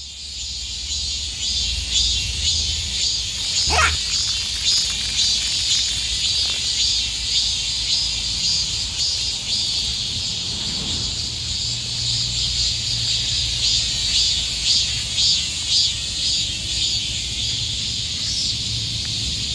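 A chorus of summer cicadas, a dense, high-pitched buzz with a pulsing shimmer. A low rumble runs underneath, and a short falling chirp cuts in about four seconds in.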